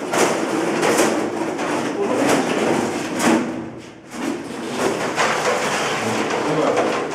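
Metal wire dog cage rattling and clanking as it is carried and slid down concrete stairs, with repeated knocks.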